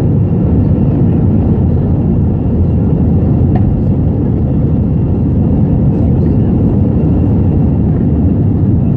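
Steady, loud cabin noise of an Airbus A320 in flight or on the move: engine drone and rushing air heard from inside the passenger cabin, with a faint high steady tone.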